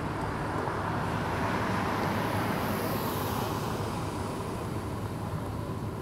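A car drives past close by on the road, its tyre and engine noise swelling about halfway through, over a steady low rumble of road noise.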